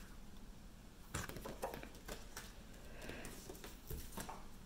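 Faint handling noises: scattered soft taps and short rustles of gift packaging and paper items being handled.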